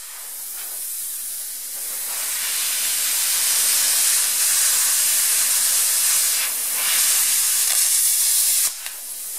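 Eastwood Versa Cut 60 plasma cutter torch hissing steadily as its arc cuts slowly through 1-inch square steel bar stock. The cut is a struggle at the limit of the machine. The hiss dips briefly near the end.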